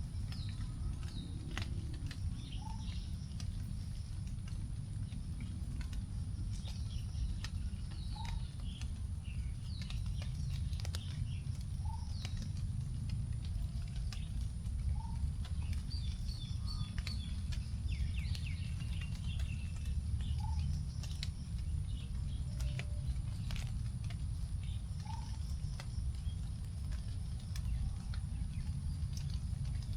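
Rain drops dripping onto forest leaves in scattered ticks while several birds chirp, one repeating a short rising note every few seconds. A steady low rumble runs underneath.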